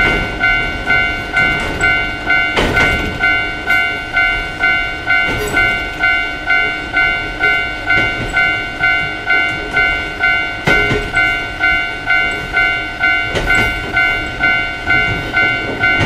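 Japanese railroad crossing alarm ringing its two-tone "kan-kan", about two strokes a second, while a train passes, its wheels knocking over rail joints every few seconds.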